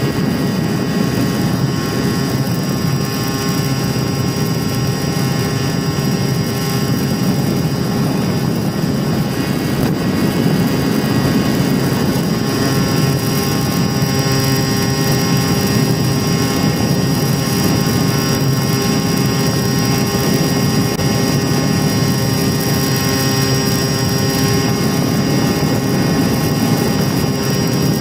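Mini Talon RC plane's Sunnysky 2216 KV1250 brushless electric motor spinning an APC 9x6 propeller in cruise flight: a steady high-pitched motor whine over a continuous rush of air across the onboard camera's microphone.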